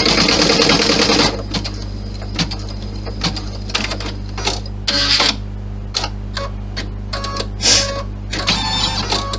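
Computerised embroidery machine stitching: about a second of fast continuous needle strokes, then short stop-start runs of stitching and clicks as it works the last stitches of the design in the hoop.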